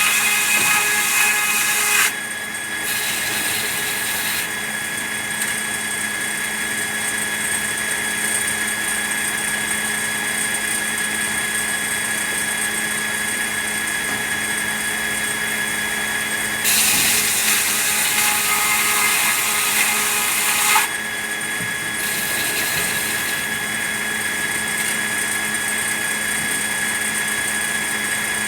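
Sawmill saw running steadily, with two louder, hissing stretches of the blade cutting through red pine: one ends about two seconds in, the other runs from about 17 to 21 seconds.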